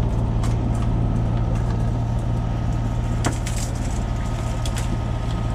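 Sailing yacht's engine running with a steady low drone, with a few light clicks and knocks on top, the sharpest about three seconds in.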